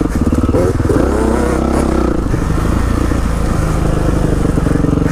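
Kawasaki KX450 four-stroke motocross engine heard from on board, running under throttle round the track. The revs rise and fall in the first couple of seconds, then run steadier.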